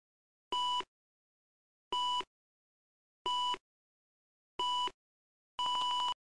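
Countdown leader beeps: four short electronic beeps of one steady pitch, just over a second apart, then a longer beep near the end that flutters in quick pulses.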